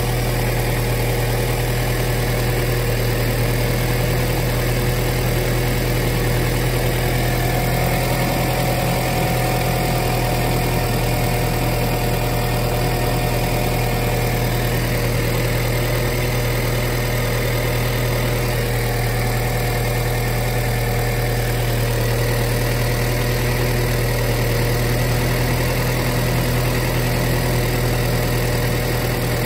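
An engine running steadily at idle, its low hum unchanging throughout.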